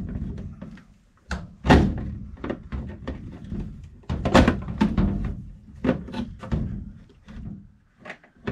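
Plastic condensate pump knocking and clunking against the side of the furnace as it is worked into place by hand: irregular thunks and clicks, the loudest about two seconds and four and a half seconds in.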